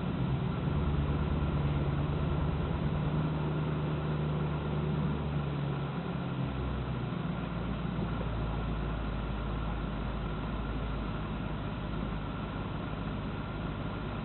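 Alpina car engine idling with a misfire. About halfway through, its note drops lower and stays there.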